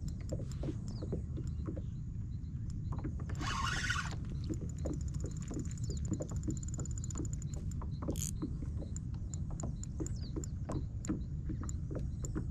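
Steady low wind rumble on the microphone with many scattered light clicks and ticks from the fishing tackle, heard while an angler in a kayak fights a hooked fish. A short hissing burst comes about three and a half seconds in.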